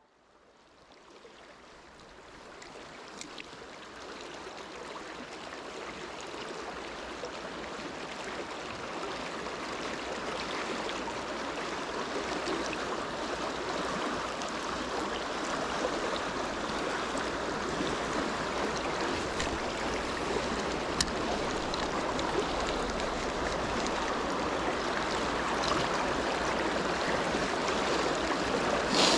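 Mountain stream flowing: a steady rush of water that fades in from near silence over the first several seconds, with a brief sharp click near the end.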